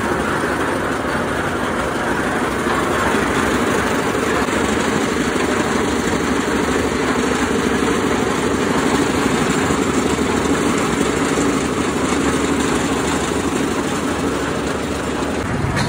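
Construction machinery engine running steadily and evenly, the machines that mix and haul concrete for a roof-slab pour.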